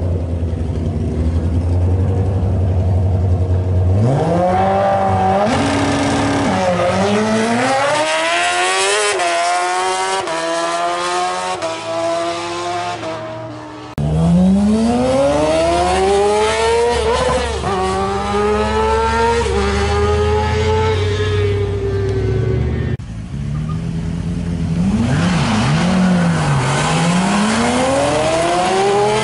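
Drag-racing motorcycles and cars at full throttle, one pass after another. A low steady rumble gives way to engine notes climbing in pitch through several gear changes. Near the end an engine revs up and down before launching hard again.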